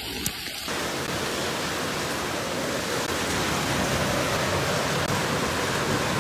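Steady, even rushing hiss of a heavy rainstorm over flooded streets, with no distinct events; the sound changes character about a second in, then holds unbroken.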